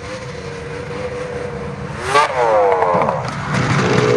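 Snowmobile engines running as sleds come up the trail; about two seconds in, one revs hard, its pitch climbing and then falling off. The engine sound grows louder as a sled draws near.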